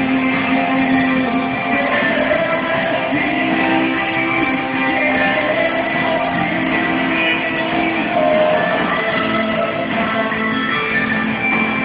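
Live band music led by guitar, with sustained notes changing every second or two, picked up through a mobile phone's microphone so that it sounds thin and cut off at the top.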